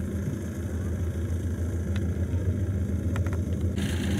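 Kubota combine harvester's diesel engine running steadily under load in a rice field, a low even drone. Near the end a brighter hiss of the machine at work joins it.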